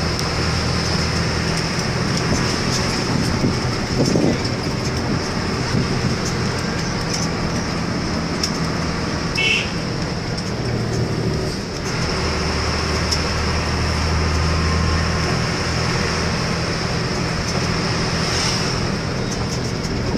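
Steady engine drone and tyre and road noise of a vehicle driving along a paved road, heard from the vehicle itself; the engine note shifts about twelve seconds in. A brief high chirp sounds about nine seconds in.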